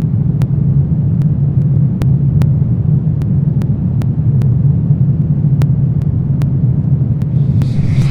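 Steady low droning rumble of a dark horror ambience bed, with faint clicks ticking a couple of times a second over it. A higher hissing layer comes in near the end.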